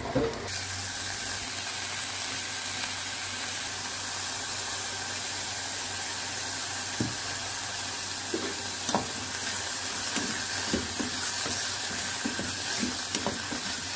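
Mushrooms sizzling as they fry in a nonstick pan, the steady hiss picking up about half a second in. In the second half a wooden spatula knocks and scrapes against the pan a few times as they are stirred.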